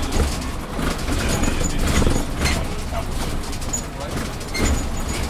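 City bus driving, its running motor and road rumble heard from inside the driver's cab, with indistinct voices.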